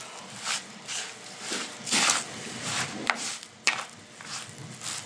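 A spoon working through a bowl of raw ground beef, breadcrumbs and egg: irregular wet squishing and scraping strokes, with two sharp clicks a little past the middle.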